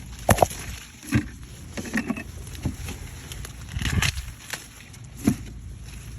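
Corn plants being handled while ears are picked by hand: rustling leaves and stalks, with irregular sharp cracks and brushing sounds roughly a second apart over a low rumble.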